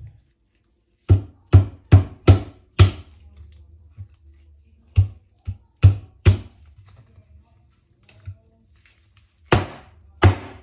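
Knife chopping down onto a cutting board while preparing the fish: a quick run of five chops, three more a few seconds later, then two near the end.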